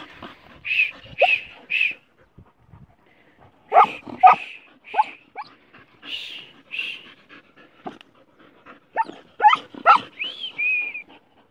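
Hunting dogs yelping and barking in short, high calls, in several clusters, at a green iguana holed up in its burrow: the dogs are baying their cornered quarry.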